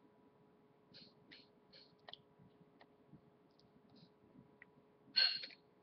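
A girl's faint breaths and small mouth clicks close to a webcam microphone, with a louder breathy sound about five seconds in, over a steady low electrical hum.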